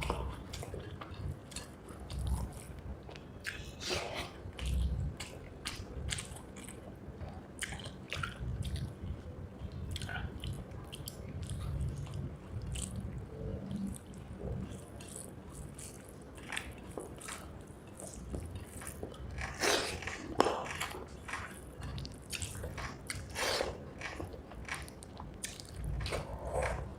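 Close-miked chewing and mouth sounds of someone eating rice with fried egg curry: irregular smacks and clicks between low thuds of chewing, with one sharper smack about two-thirds of the way through.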